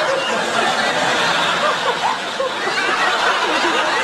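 People chuckling and laughing softly, with scattered bits of voices.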